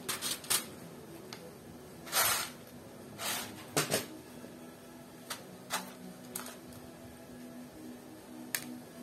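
Tiny plastic mini-bricks clicking and rattling against clear plastic trays as they are picked through by hand: a series of short, separate clatters, the longest about two seconds in, thinning out after about four seconds.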